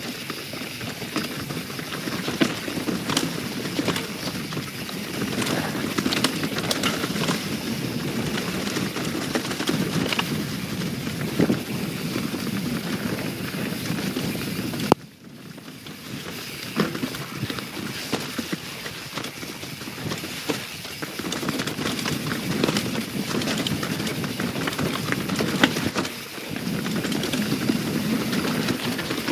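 YT Jeffsy 27 full-suspension mountain bike descending a wet, rocky, root-strewn trail: tyre noise rolling over wet leaves and rock, with frequent knocks and rattles from the bike over bumps. The noise cuts out suddenly for a moment about halfway through.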